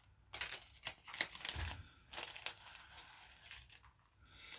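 Crinkling and rustling of a packet of paper die-cuts being handled, with a few sharp crackles at irregular intervals.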